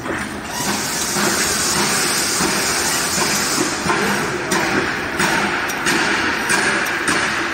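Automatic hexagonal wire mesh (chicken wire) netting machine running with a loud, steady mechanical clatter and hiss. From about halfway through, sharp clacks repeat roughly every two-thirds of a second.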